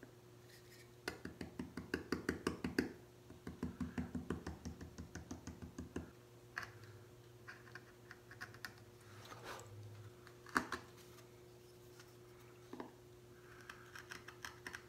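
Wooden mallet tapping a carving gouge into a plywood woodcut block in quick light strikes: two runs of about a dozen taps each in the first six seconds. Then scattered small clicks and scrapes as the gouge is worked by hand.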